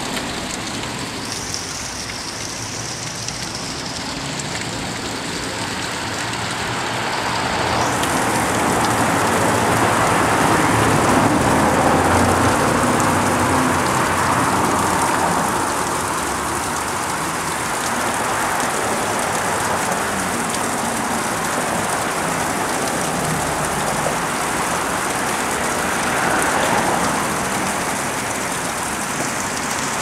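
Small waterfall splashing down a rock face onto stones and leaves: a steady rush of falling water, louder for several seconds near the middle.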